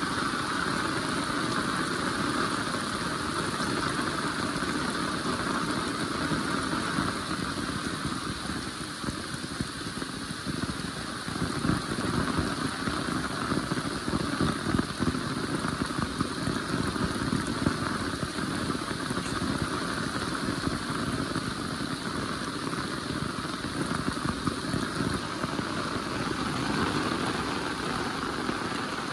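Heavy rain falling steadily, a dense patter of drops that grows heavier and more uneven from about ten seconds in.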